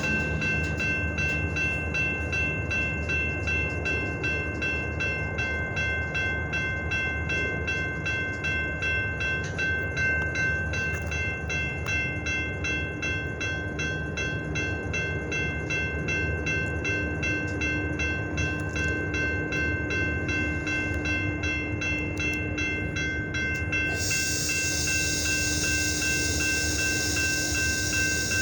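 Diesel freight train running, with a steady low rumble. Over it run several steady high ringing tones and a regular ticking about twice a second; near the end the ticking gives way to a rising hiss.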